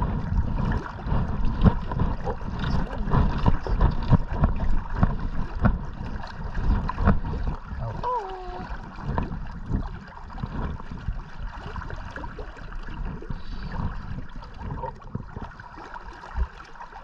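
River water sloshing and gurgling around a wading angler as he plays a hooked American shad on a bent Spey rod. Frequent low thumps of water and handling come through, busiest in the first half and easing off towards the end.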